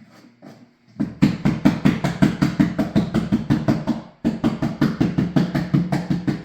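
Rapid knocking on an old 20-gallon glass tank and its glued coco-fiber background, about five blows a second. It stops briefly a little past halfway and then starts again. The blows test whether the background is stuck on solidly.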